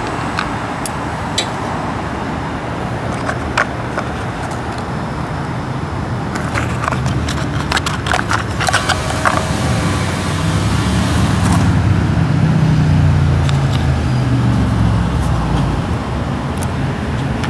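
Steady road traffic noise, swelling as a vehicle passes about ten seconds in, with a cluster of small sharp clicks of plastic parts being handled partway through.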